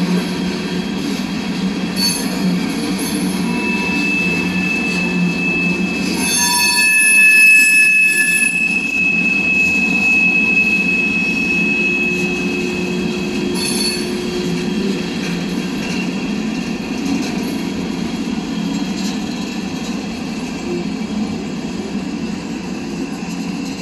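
CSX freight train's hopper cars rolling past, wheels running on the rails. A high, steady wheel squeal comes in a few seconds in, is loudest around seven seconds, and fades out around twelve seconds.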